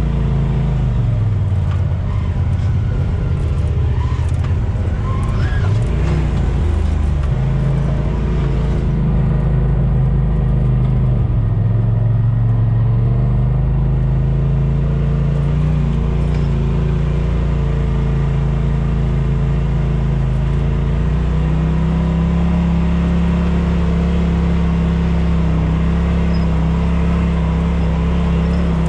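Off-road vehicle engine running at low trail speed, its pitch dipping and rising with the throttle through the first half, then holding steadier near the end.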